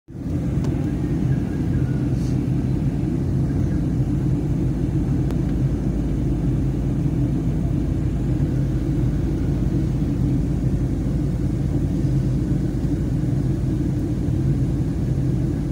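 Airliner cabin noise in flight: a deep, steady rumble of engines and rushing air heard from inside the cabin.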